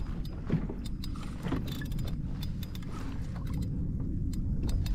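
A steady low rumble of wind and water, with scattered small clicks from the spinning reel and tackle as a shark is worked in on a bent rod beside the kayak.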